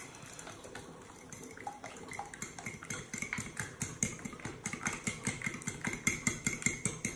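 A metal fork beating eggs in a glass bowl, clinking against the glass in a fast, even rhythm that gets louder from about halfway through, as baking powder and soda are stirred into the beaten eggs.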